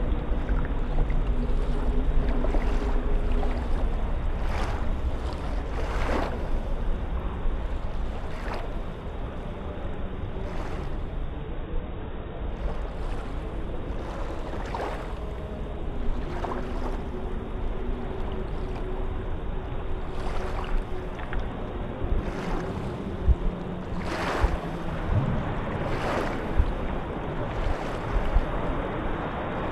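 Shallow surf washing in and out over sand at the water's edge, a steady wash with occasional brief splashes. Wind rumbles on the microphone.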